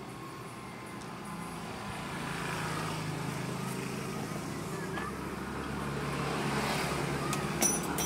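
Street traffic with a vehicle engine running close by, getting louder about two seconds in and deepening partway through, with a few sharp clicks near the end.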